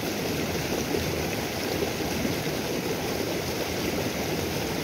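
Shallow stream water rushing over a small rocky drop, a steady wash of water noise.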